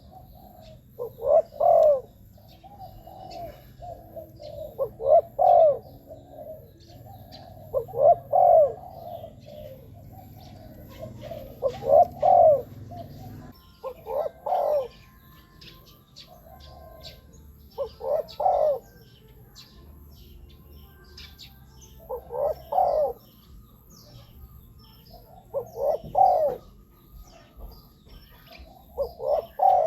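Spotted dove cooing: a loud phrase of several coos about every three to four seconds, with fainter cooing in between and faint high chirps.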